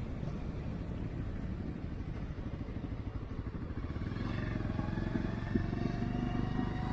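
Motorcycle engine running under way, a dense low rumble from the rider's own bike. The note turns steadier about four seconds in.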